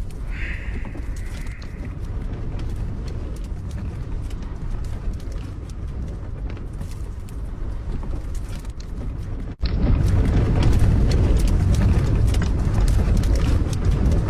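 Strong gusting wind buffeting a small camper van, a heavy low rumble on the microphone with scattered rattling clicks. A brief whistle-like tone comes near the start. After a short drop about nine and a half seconds in, the wind noise comes back louder.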